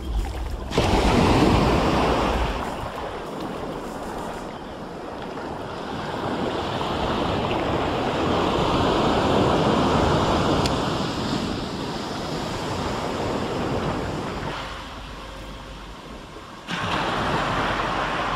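Sea waves breaking and washing up on the shore, swelling and fading every few seconds, with some wind on the microphone.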